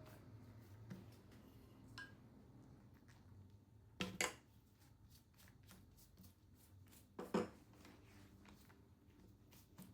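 Quiet kitchen handling sounds: faint scattered taps, with two sharper double knocks about four and seven seconds in.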